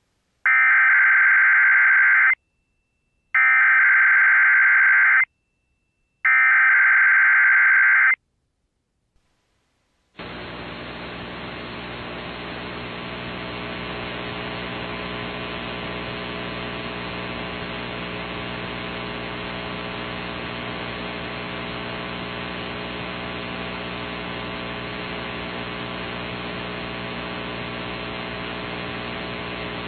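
Three bursts of EAS/SAME digital header tones, the raspy modem-like data signal that opens an emergency alert broadcast, each about two seconds long with short silent gaps. About ten seconds in, a steady radio static hiss with a faint hum begins and carries on.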